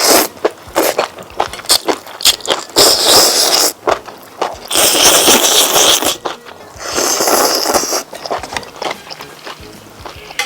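Close-miked chewing of crisp, crunchy food: wet crunching bites in several loud bouts, easing off near the end.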